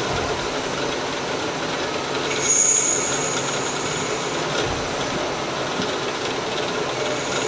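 FEMCO HL-35 slant-bed CNC lathe running, its spindle turning a nylon part that a turret tool cuts dry, without coolant. About two seconds in, a high-pitched whine comes in over the steady machine noise for roughly two seconds, the loudest part, as the tool cuts into the nylon and throws chips.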